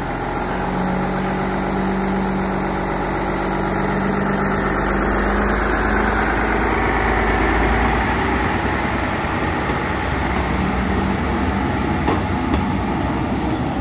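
Diesel engines of a Stadler–Bombardier diesel-electric rack railcar running steadily as the train moves past along the platform; the deep rumble eases about eight seconds in.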